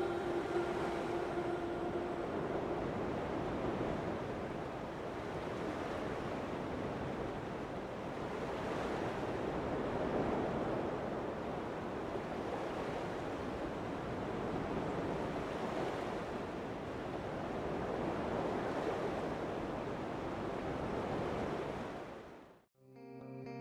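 Ocean surf: waves washing onto a beach in a steady rush that swells and eases slowly, fading out near the end.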